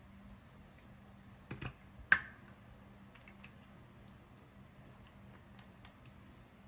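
Skincare containers handled at a bathroom counter: a few quick taps, then one sharp click just after two seconds in, followed by faint small ticks, over a faint steady hum.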